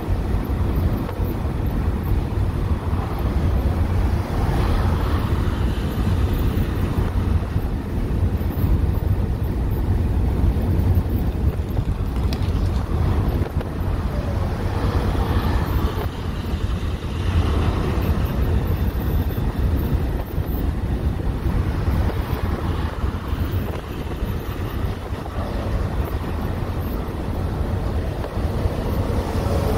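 Wind buffeting the microphone with a steady low rumble, while highway traffic (cars and a semi-truck) passes every few seconds, each pass a rush of tyre and engine noise that swells and fades.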